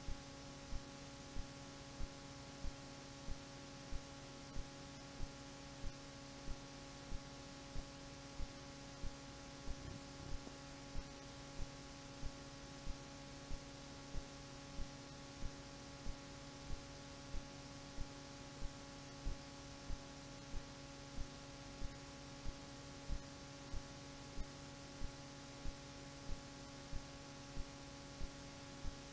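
Steady electrical hum at a low level, with a soft thump repeating evenly about one and a half times a second; no music is heard.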